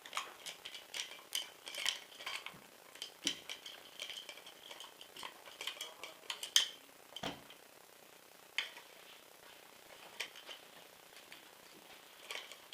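A screwdriver working the two screws out of the pistol grip of an airsoft M4, with scattered small metal clicks, scrapes and taps. They are busy for the first six or seven seconds, then thin out to an occasional click.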